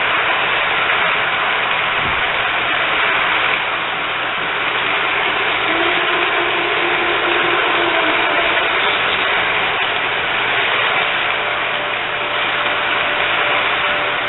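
Model train passenger cars rolling along the track, a steady mechanical rattle and rumble that eases slightly near the end as the last cars pass.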